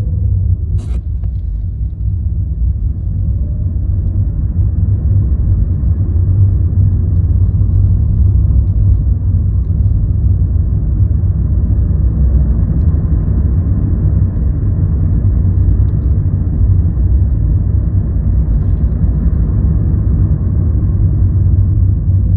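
Steady low road and drive rumble from a moving Hyundai Ioniq electric car, with a faint whine gliding in pitch in the first few seconds and a single sharp click about a second in.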